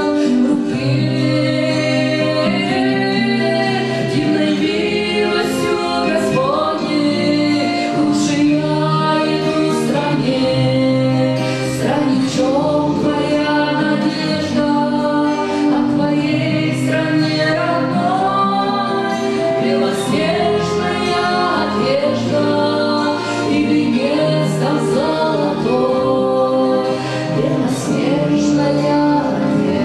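A woman singing an Orthodox spiritual song into a microphone over sustained accompaniment chords.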